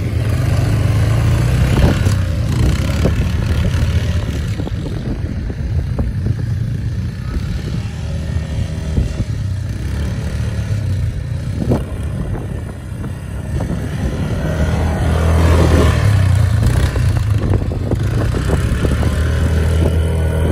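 Yamaha ATV engine running as the quad bike rides over sand, its pitch and loudness rising and falling with the throttle. It is loudest, under acceleration, about 15 seconds in.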